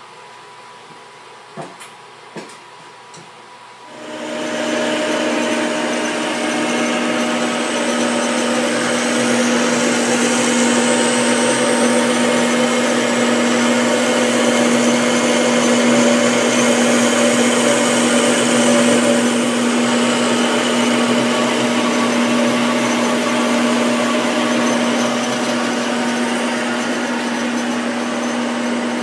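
A few light clicks, then an electric power tool's motor starts about four seconds in and runs steadily with a constant hum and hiss.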